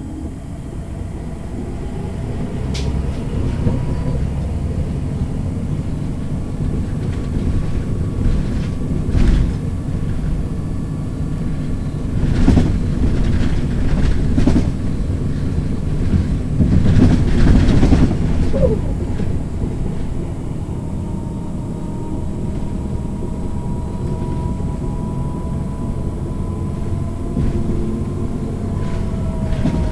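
MAN NG 313 articulated city bus's diesel engine and ZF gearbox under way. The engine rumbles and a gearbox whine rises as the bus pulls away. Louder clatter and rattling come between about 12 and 18 seconds in, and a steady whine returns in the second half.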